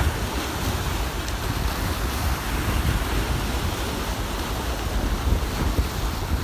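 Storm-driven sea waves washing in, with wind rumbling on the microphone.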